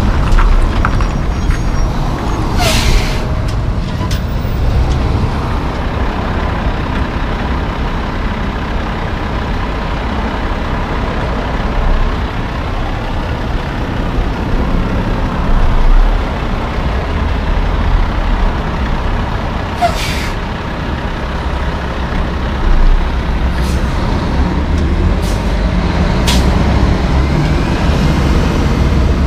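Loaded logging trucks driving past close by, their diesel engines and tyres making a steady heavy noise. A few short sharp hisses of air brakes stand out: one about three seconds in, one about twenty seconds in, and fainter ones soon after.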